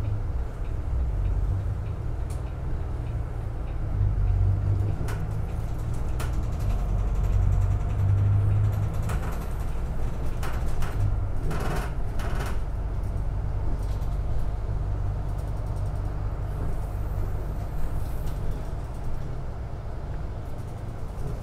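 City bus heard from inside the cabin at the front, pulling away and driving: a steady low engine and drivetrain hum that swells and eases with the throttle, over road noise, with a few light rattles and clicks about halfway through.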